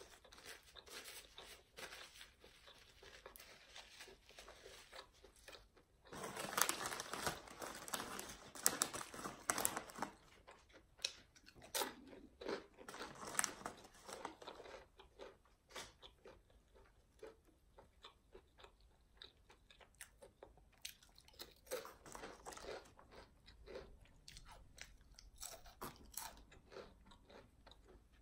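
A person chewing and crunching crisp food up close, with two runs of louder, denser crunching about six to ten and twelve to fourteen seconds in and softer chewing clicks through the rest.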